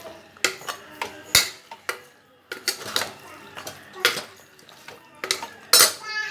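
A ladle stirring beef pieces through masala in a pressure cooker, knocking and scraping against the metal pot in an irregular string of clinks, the loudest near the end.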